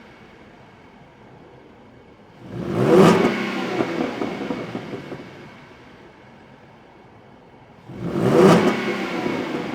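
Ford Mustang 3.7-litre V6 idling, then blipped twice from idle by a free rev, about five seconds apart: each time the pitch rises sharply and falls back to idle.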